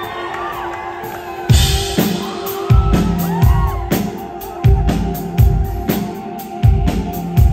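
A rock band starting a song live: a held keyboard-like note under crowd shouts and cheers, then about a second and a half in a heavy low drum-and-bass beat comes in and repeats about once a second.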